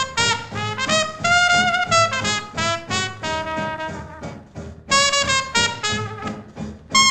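Background music: a brass-led swing tune, with a melody of quick changing notes over a steady low beat.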